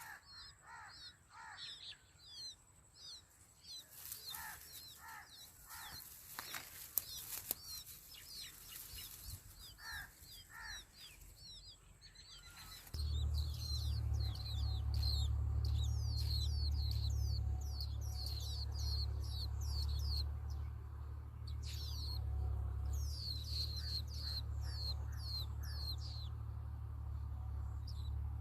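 Nestling birds giving rapid high begging chirps for food, several short falling notes a second, with rustling in the first half. About halfway in, a loud steady low hum starts underneath and carries on.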